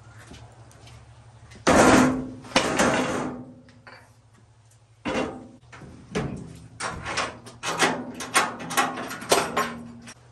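Metal clanks and bangs from an old Mercury pickup's steel bed and tailgate. A loud ringing clang comes about two seconds in and another shortly after. From about five seconds on, a run of sharper clanks and rattles follows as the tailgate is swung up and latched shut.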